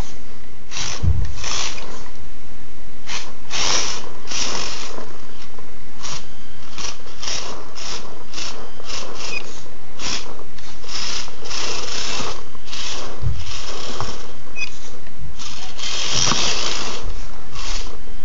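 Losi Micro Blade 1:24-scale RC rock crawler's small electric motor and geared drivetrain running in short, irregular bursts of throttle as it crawls over rocks, with the longest burst about three quarters of the way through.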